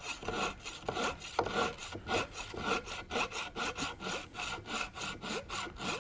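Flush trim saw with set-free teeth cutting a 5/16-inch red oak dowel flush with the face of an oak leg, in even back-and-forth rasping strokes, about three a second.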